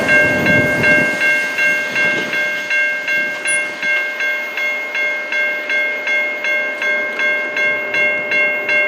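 Railway level-crossing bell ringing steadily at about three strikes a second, while the rumble of the departing intermodal stack train's last cars fades out within the first second.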